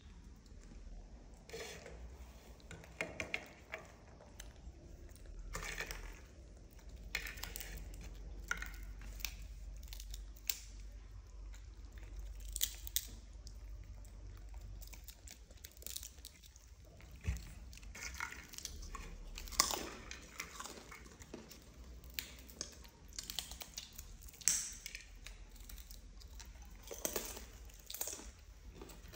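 Small monkeys chewing crunchy snack rings and bread, with irregular short crunches and mouth clicks.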